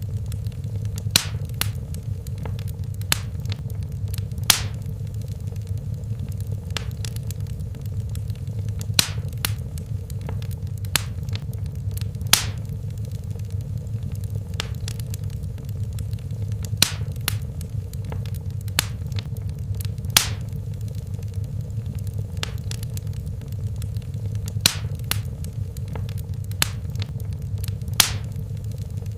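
Wood fire burning in a fireplace: a steady low rumble of the flames with irregular sharp crackles and pops, a few of them louder.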